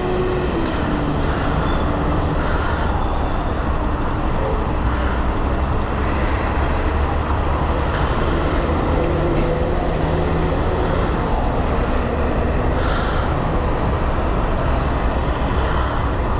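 Chinese motorcycle engine idling steadily at a standstill, with city traffic, buses and cars, driving through the intersection around it.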